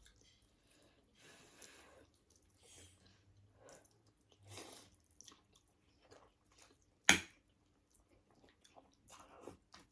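Close-up eating sounds: soft chewing and wet mouth noises of someone eating a meal of ramen soup and sides. A single sharp click comes about seven seconds in, and a few softer sounds follow near the end.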